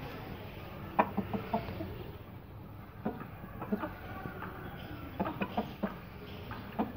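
Aseel and desi chickens clucking in several short runs of quick, brief clucks, a second or two apart.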